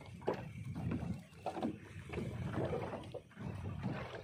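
Small fishing boat at sea: a steady low rumble of the boat on the water.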